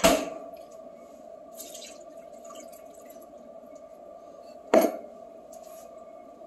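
Two sharp knocks of kitchenware, the first as a metal tumbler is handled at the stovetop and the second nearly five seconds later, each ringing briefly, over a steady hum.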